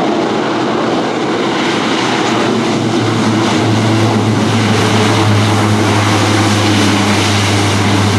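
C-130J Hercules' four Rolls-Royce AE 2100 turboprops with six-blade propellers, running loud through a maximum-effort assault landing rollout. About three seconds in, a strong steady low propeller drone sets in over the roar as the propellers bite in reverse to stop the aircraft short.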